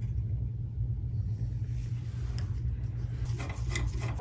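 A steady low rumble runs throughout. Near the end come a few light metallic clicks as a tool is worked on the column's clamp screws.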